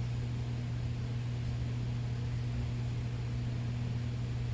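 Steady low hum with an even hiss over it, unchanging throughout: background noise of the room or recording equipment.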